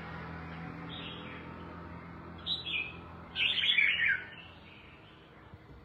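Red-whiskered bulbul calling in short chirps, the loudest a brief warbling phrase about three and a half seconds in that falls in pitch.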